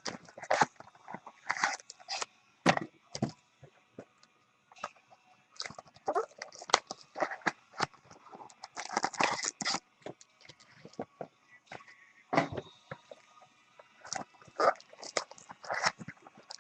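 Trading card box packaging being handled: a string of short, irregular crinkles and taps from plastic wrap, cardboard and foil packs.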